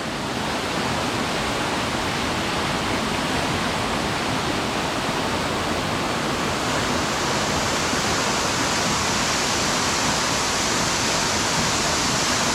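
Waterfall pouring into a rock pool: a steady, loud rushing of water. The hiss grows a little brighter about halfway through.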